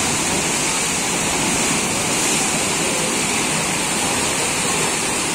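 Fast river water rushing and churning through the Eisbach standing wave, a steady, unchanging noise.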